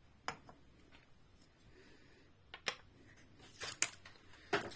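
A handful of light, separate clicks and taps from a small die-cast toy car being handled and set down on a hard tabletop.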